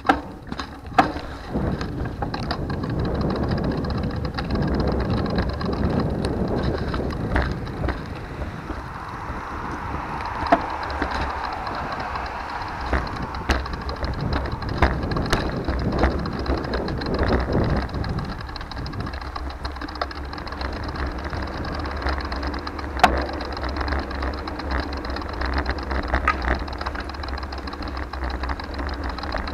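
Riding noise from a 2020 Trek Dual Sport 4 bicycle on the move: wind rumbling on the microphone over a hiss of road noise, with scattered sharp clicks and knocks, the loudest about a second in and near the three-quarter mark.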